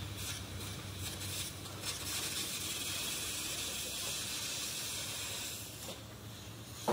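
A steady hiss that fades away about six seconds in, followed by a short knock at the very end.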